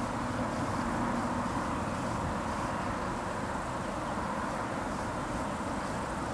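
A distant jet airliner's steady rumble as it flies low past the airport.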